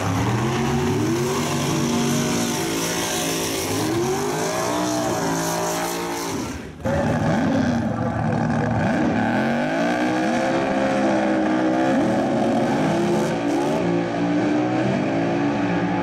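Drag racing car engines at full throttle, climbing in pitch through each gear and dropping back at every shift. About seven seconds in the sound breaks off abruptly and another run starts, again accelerating through the gears.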